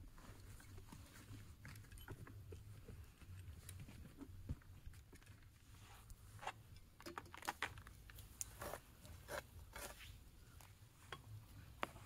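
Faint crackling and clicking of dry twigs, grass litter and stones being handled and set in place while a makeshift stone cooking fire is laid on the ground. The clicks come thicker in the second half.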